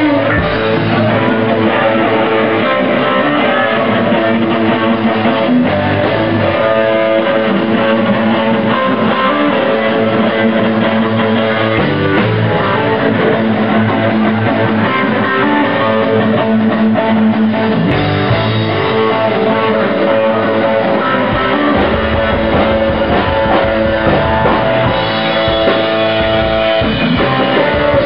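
Live rock band playing loudly on electric guitars and a drum kit.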